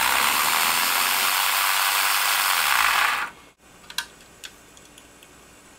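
Dremel rotary tool running hard against the turbine shaft of a homemade soda-can jet engine, a loud steady rattling whirr that cuts off abruptly about three seconds in. A couple of light clicks follow.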